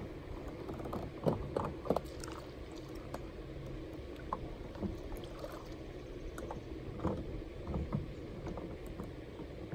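A Native Titan pedal kayak being pushed off into shallow water with a paddle: scattered knocks and small splashes, a cluster about a second or two in and a few more near seven to eight seconds in, over a steady low rumble.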